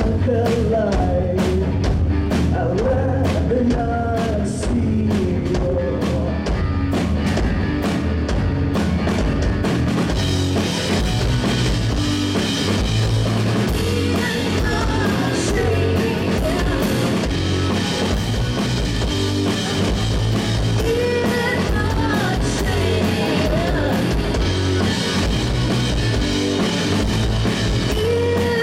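Live rock band playing electric guitars and a drum kit: sparse, regular drum hits at first, filling out into a denser, louder full-band passage with cymbals about a third of the way in.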